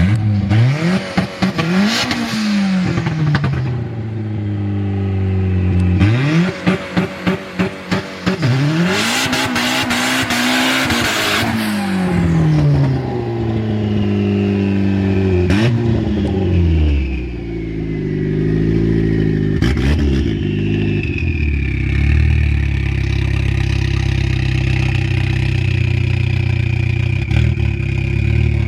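Turbocharged Chevrolet Cobalt SS four-cylinder engine revved several times, the pitch climbing and falling back, one rev stuttering rapidly, then settling into a steady idle with a high whine. The turbo on it is said to be bad.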